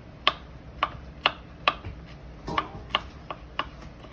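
Kitchen knife chopping fresh garlic cloves on a cutting board: sharp knocks, about two a second at an uneven pace.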